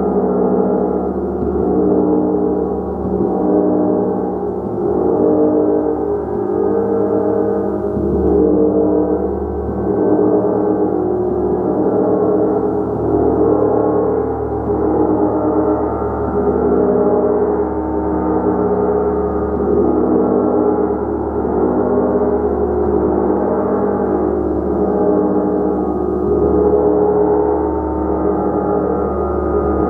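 Large hammered gong played continuously: a dense, sustained wash of many overlapping ringing tones that swells and ebbs gently every second or two, with no single strike standing out.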